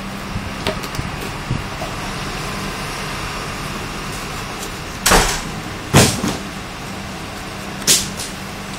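Packing tape being picked at and ripped off a cardboard box seal, with faint clicks of fingernails on the tape and three short, loud rips in the second half, the last near the end.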